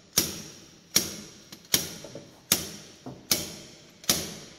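Slide hammer on a diesel injector puller striking metal on metal six times in an even rhythm, about one blow every 0.8 s, each with a short ring. It is knocking out a seized injector, which the mechanic suspects is stuck with carbon from a blown injector copper washer.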